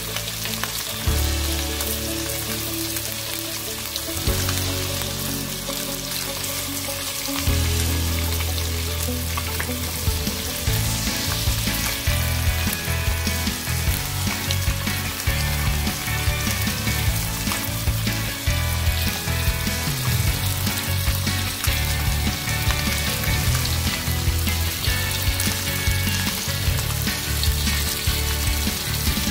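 Oil sizzling and crackling steadily around a whole gilthead sea bream shallow-frying in a non-stick pan, with low music-like tones underneath that change every few seconds.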